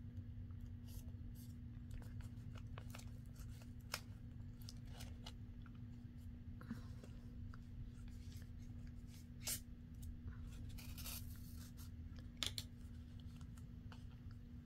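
Faint rustling and rubbing of paper and thread as a small paper journal is handled and sewn by hand with a pamphlet stitch, the thread pulled through its punched holes. Scattered small clicks over a steady low hum.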